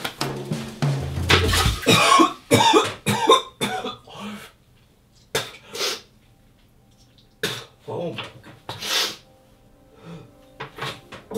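A man retching and coughing over a toilet, vomiting from overexertion: a quick run of gags and coughs in the first few seconds, then single heaves spaced a second or two apart.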